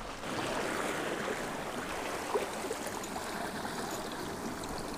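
Seawater sloshing and washing around jetty rocks, a steady wash.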